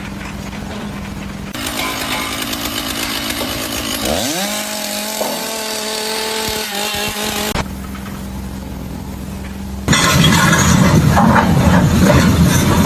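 Machine noise from several cut-together clips: a steady hum, then a motor revving up with a rising whine about four seconds in that holds steady. From about ten seconds in a louder, rough rumbling noise takes over.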